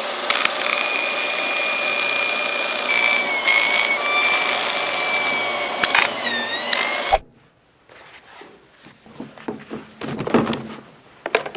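Portable jobsite table saw running and cutting through a life jacket, a high blade whine that sags in pitch as it bites, stopping abruptly about seven seconds in. After that come softer knocks and thuds as the cut pieces are pushed into plastic storage bins.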